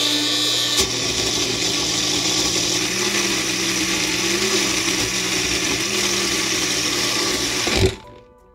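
Personal push-down blender motor running steadily, grinding herbs, onion, garlic and wine into a wet paste. Its pitch wavers slightly as the load shifts, and it cuts off suddenly near the end.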